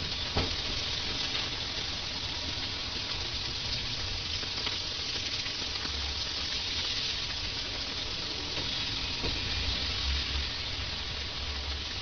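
Heavy monsoon rain pouring onto a flooded road, a dense steady hiss, with an irregular low rumble underneath.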